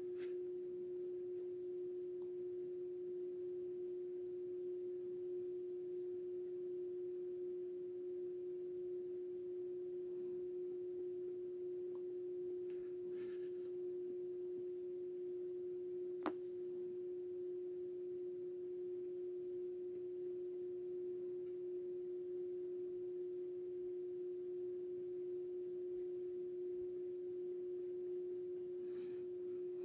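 A steady hum held on one unchanging pitch, with a single sharp click about sixteen seconds in.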